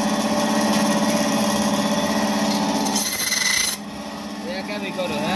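A large rohu being scraped against a fish-cutting blade, a rasping scrape that is loudest for under a second about three seconds in, over a steady machine hum.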